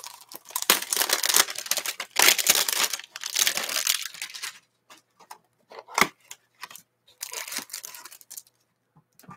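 Cardboard and wrapper of a Panini Playbook football card hanger box being torn open and crinkled by hand. Several bursts of tearing and crinkling, with a sharp tap about six seconds in.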